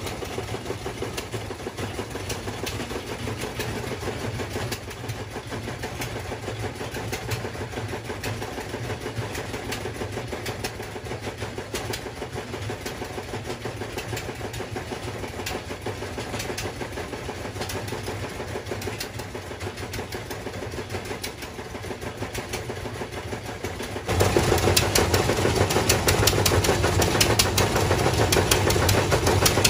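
A small engine-driven machine running steadily with a rapid, even clatter of clicks; it becomes louder about three quarters of the way through.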